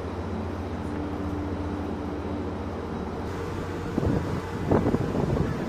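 Steady low hum on an open ship's deck, then from about four seconds in irregular gusts of wind buffeting the microphone, which are the loudest sound.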